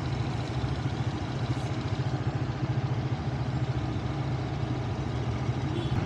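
Motorbike taxi ridden through city traffic, heard from the pillion seat: a steady low rumble of engine and road noise.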